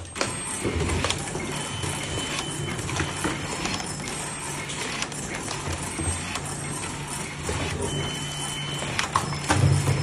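Desktop automatic screw-fastening machine and workshop clatter: irregular knocks and clicks over a steady low machine hum, with two brief high steady tones, one a little after the start and one about eight seconds in.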